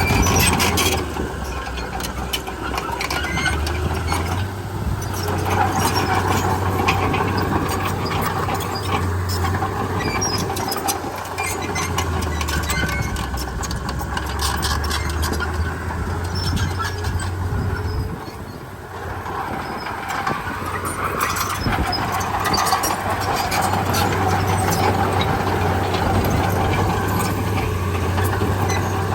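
Komatsu D31P crawler bulldozer's diesel engine running steadily, with a constant metallic clatter over it. The engine sound drops briefly about two-thirds of the way through, then picks up again.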